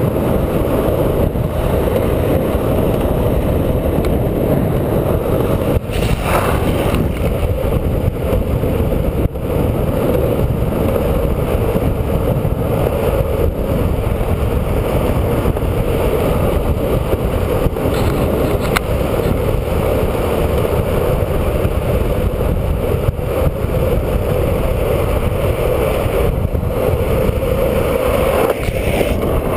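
Longboard's 69 mm 78a urethane wheels rolling fast over asphalt on a downhill run, with wind on the microphone: a steady low rumble, broken by a few brief clicks.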